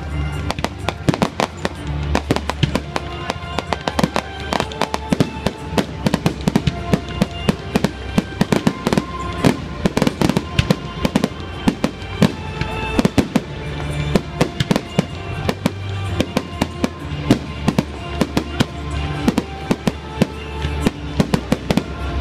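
Aerial fireworks display: shells bursting in a dense run of sharp bangs and crackles, many a second, with music playing throughout.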